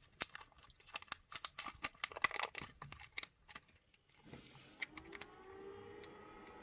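Small airsoft hop-up parts being handled and rummaged through, giving a quick run of light clicks and rattles. A little after four seconds in, a steady humming tone starts, rising slightly in pitch and then holding.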